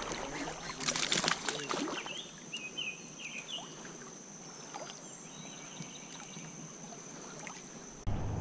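Water splashing and light knocks around a kayak for about a second, followed by quieter water sounds. A bird chirps a few times, over a steady high insect drone.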